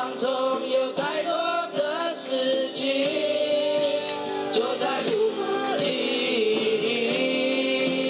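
Teenage boys singing together into microphones over a strummed acoustic guitar, a live song performance.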